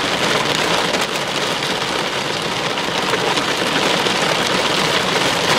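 Heavy rain mixed with hail pelting a vehicle's windshield and roof, a steady dense patter.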